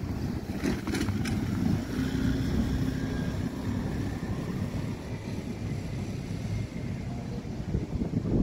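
Street noise from a passing motor vehicle, with wind on the microphone and a few sharp clicks about a second in.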